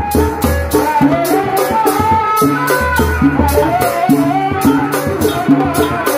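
Sundanese tanji band music: heavy low drums under a steady rattling beat about four times a second, with a wavering melody line on top.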